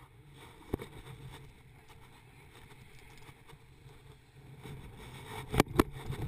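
Steady low rumble of wind and surf on a GoPro's microphone, broken by sharp knocks from the camera being handled: one about a second in and two close together near the end.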